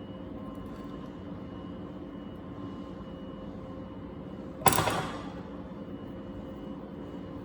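Steady hum of a running appliance in the room, broken by a single sharp knock with a brief ringing tail a little under five seconds in.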